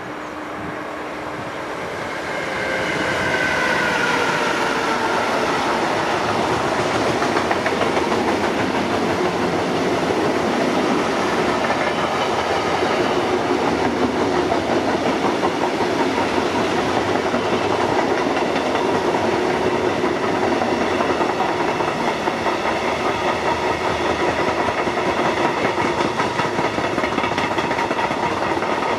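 Container freight train passing close by: the locomotive draws near and goes past about three seconds in with a falling whine, then the wagons roll by in a steady rumble with the rhythmic clickety-clack of wheels on the rails.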